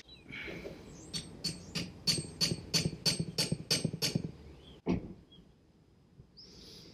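Hammer tapping on a socket to drive a new oil seal fully into a Ford Type 9 gearbox casing: about a dozen even, ringing metallic taps at three to four a second, then one more blow a moment later.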